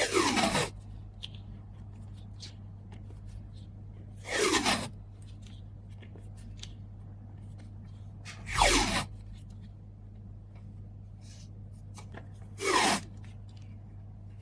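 Packing materials handled in four short rasping pulls, each about half a second long with a falling pitch, about every four seconds, with small handling clicks between.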